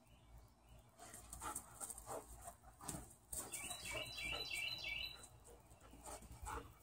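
Dog mouthing and chewing a plush toy on sandy ground: irregular scuffling and rustling, with a quick run of short, high squeaks in the middle.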